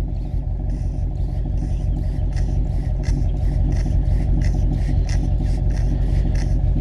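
Exhaust of a Subaru WRX wagon's turbocharged flat-four engine idling steadily, heard right at the tailpipe.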